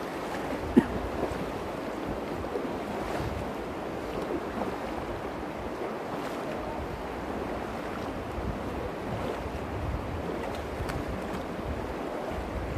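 The Virgin River flowing shallow over river stones: a steady rushing of water. A single short knock sounds about a second in.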